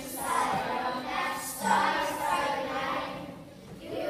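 A group of children singing together, with a brief break between phrases about three and a half seconds in.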